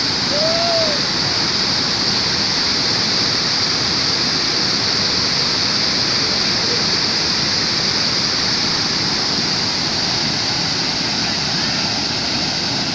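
Waterfall water rushing and splashing steadily.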